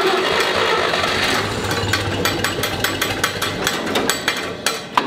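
International Harvester 706 tractor's six-cylinder gasoline engine cranking on its starter, catching about a second and a half in and running with a rapid, uneven clatter of ticks and rattles.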